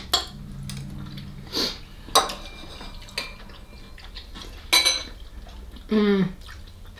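Spoons clinking against soup bowls while eating: several separate light clinks spread out over a few seconds.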